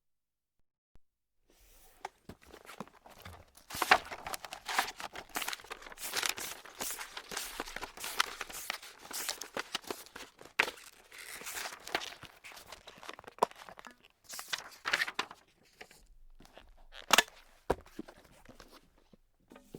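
Paper being crumpled and crinkled in the hands: dense, irregular crackling with sharp crisp snaps, starting about a second and a half in, easing off near the end with one last loud crackle.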